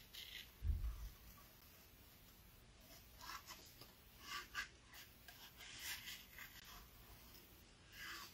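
Scissors snipping through a paper card in short, scattered cuts a second or more apart, as the card is turned around the blades for fussy cutting. A low thump about a second in.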